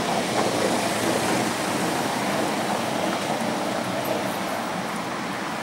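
Carris tourist tram rolling along its street track: a steady rumble of wheels on rails that slowly fades as the tram draws away.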